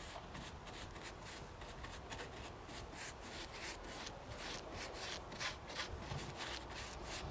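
Paintbrush strokes on dry papier-mâché: a rapid run of short scratchy swishes, about four a second, getting louder in the second half.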